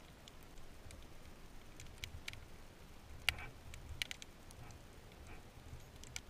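Underwater ambience: a faint low muffled rumble of moving water, with sparse sharp clicks scattered through it, the loudest about halfway through.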